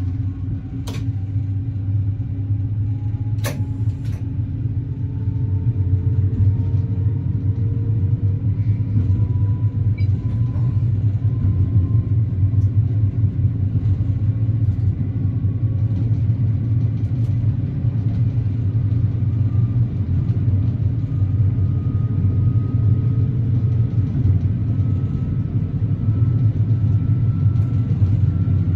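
AKN VTA diesel railcar running under way, a steady low rumble with faint whining tones that rise slowly in pitch as it gathers speed. Two sharp clicks in the first few seconds.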